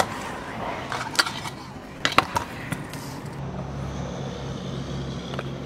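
Stunt scooter riding in a concrete skate bowl: its wheels roll over the concrete, with sharp clacks about one and two seconds in. From about halfway through, a steady low hum joins.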